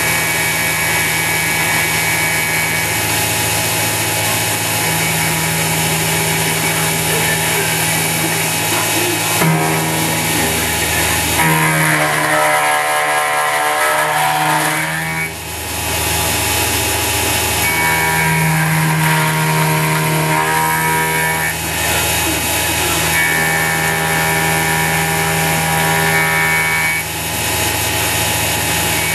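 CNC-converted X2 mini mill machining 6061 aluminum: the spindle motor runs steadily and the cutter chatters and hisses through the cut. Pitched machine whines come and go every few seconds as the table feeds along its axes.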